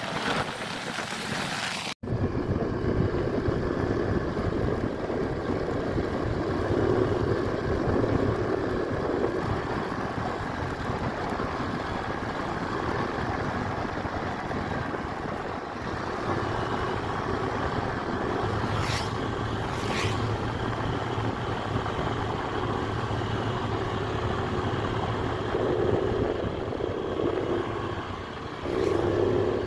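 Honda Click 125i scooter running along the road at a steady pace, its engine mixed with road and wind noise. There is a brief dropout about two seconds in.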